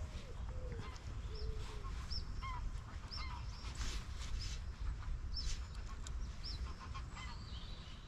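Birds calling again and again in short, high, hooked notes, over a steady low rumble.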